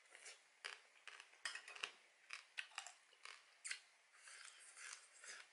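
Faint, irregular wet smacking and clicking of a mouth eating soy-marinated crab, sucking and chewing the meat from the shell.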